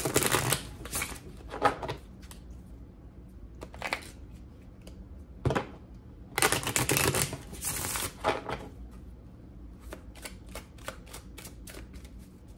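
A deck of oracle cards being shuffled by hand in several rustling bursts, followed near the end by a quick run of light card clicks, about five a second.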